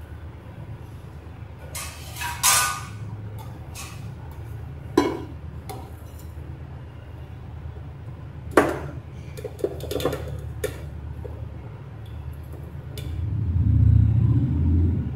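Stainless-steel mixer-grinder jar being emptied into a steel bowl: a few separate metallic knocks and clinks as the jar meets the bowl, then a louder low rumbling handling noise near the end.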